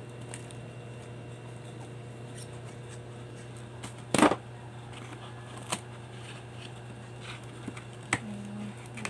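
A taped cardboard box being handled on a tabletop: scattered knocks and cardboard rustles, the loudest about four seconds in. Near the end comes a sharp click as scissors are taken to the packing tape. A steady low hum runs underneath.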